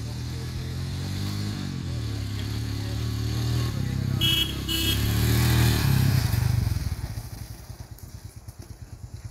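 Royal Enfield Himalayan's single-cylinder engine revving as the motorcycle is ridden hard across a dirt field, its pitch rising and falling with the throttle. It grows louder until about six seconds in, then fades as the bike rides away.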